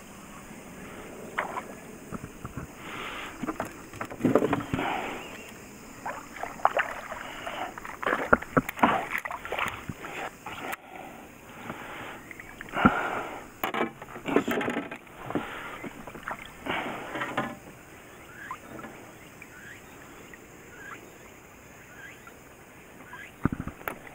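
Irregular splashing and knocking as a small black bass is played at the surface and scooped into a landing net beside the boat, busiest in the first two-thirds and quieter near the end.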